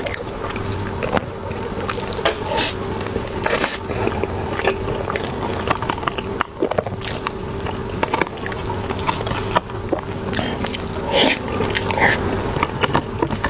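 Close-miked eating sounds: a person biting into and chewing soft cream cheese buns, with many short, irregular mouth clicks and smacks.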